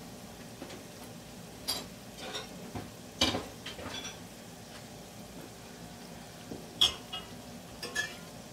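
Samosas deep-frying in hot oil with a steady low sizzle, while a metal spoon clinks and knocks against the nonstick pan about eight times, loudest about three seconds in and again near seven seconds.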